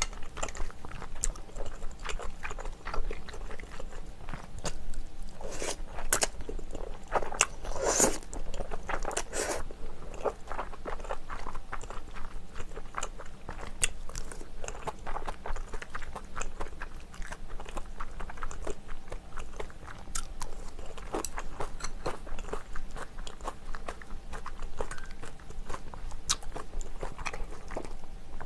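Close-miked chewing and biting of spicy braised chicken, with many sharp wet clicks and crunches, busiest a few seconds in.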